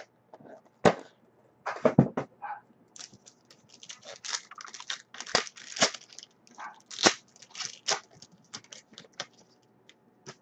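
A few sharp knocks as a trading-card box is handled, then the crinkling and tearing of a football card pack's wrapper as it is opened.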